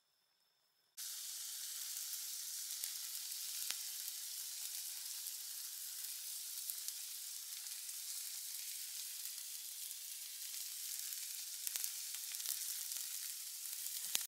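Top blade beef steak sizzling in a frying pan: a steady hiss with scattered pops that starts suddenly about a second in, with a few sharper pops near the end.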